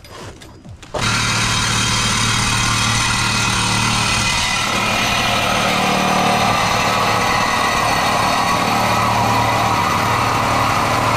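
Angle grinder with a cut-off wheel starting about a second in and running steadily at full speed as it cuts through the steel stock exhaust pipe.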